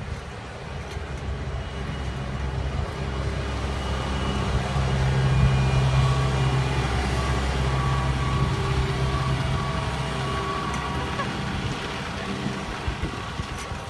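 Farm tractor's diesel engine running as it drives past: a steady low drone that grows louder toward the middle and fades toward the end.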